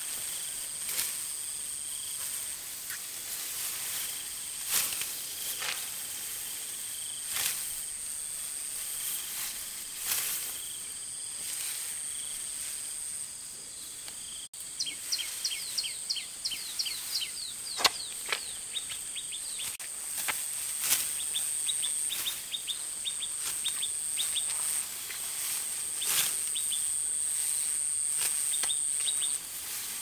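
Outdoor ambience: a steady, high insect drone that breaks off now and then, with short sharp noises every second or two. From about halfway, a bird gives many quick, falling chirps.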